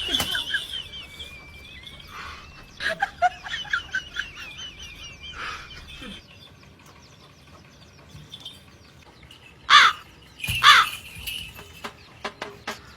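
Birds calling: a wavering trill in the first few seconds, then two loud, harsh calls about ten seconds in.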